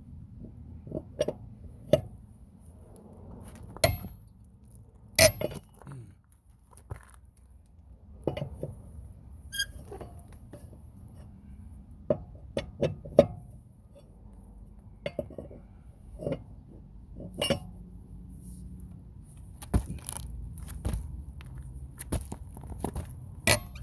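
Irregular sharp metal clanks and clinks of a lug wrench being fitted to and worked on wheel lug nuts, breaking them loose with the wheel still on the ground. One strike about ten seconds in rings briefly.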